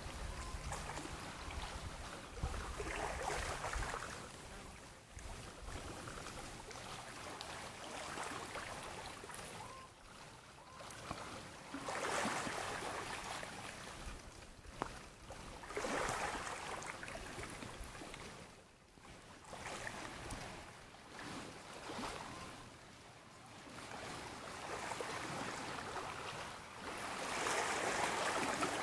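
Small lake waves washing onto the shore: a rushing wash that swells and fades every few seconds.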